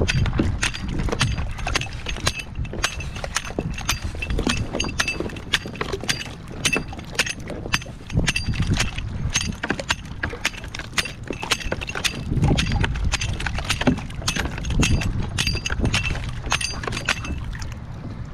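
A hand-held pronged scraper raking and knocking against barnacles and mussels on a piling, a rapid, irregular run of sharp scrapes, cracks and clinks of shell. Scraping the shells loose is the chum method known as ringing the dinner bell, which brings sheepshead in to feed.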